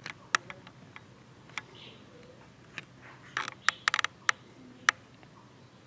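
Sharp clicks: a few single ones, then a quick cluster of them about three and a half to four and a half seconds in.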